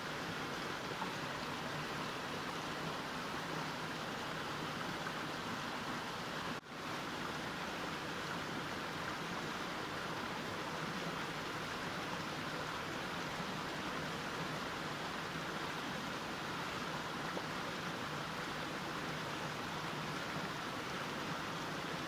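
Mountain stream flowing, a steady, even water noise, broken once by a momentary dip in level about a third of the way through.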